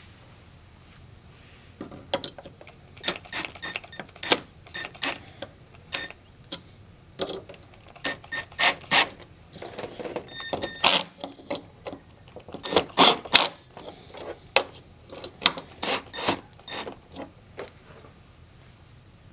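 Cordless drill-driver fastening screws into a metal soundbar mounting bracket. Irregular clicks and clatter of the screws, driver bit and metal parts come in bunches from about two seconds in until near the end.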